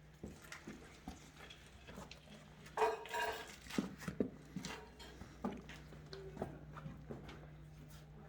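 Footsteps and scrambling on rock, heard as irregular light clicks and knocks, with a short pitched sound about three seconds in.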